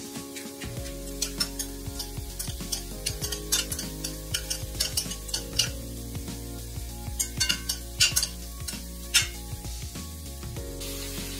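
Metal spoon stirring halved cherry tomatoes in a glass bowl, clinking against the glass again and again, with a few louder knocks near the end. Soft background music plays underneath.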